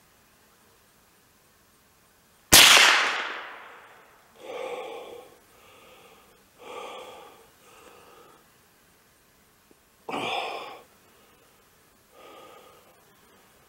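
A single .22 LR shot from a Belgian FN Browning Trombone pump-action rifle about two and a half seconds in, its report fading over about a second and a half. After it come several heavy breaths from the shooter, the loudest about ten seconds in.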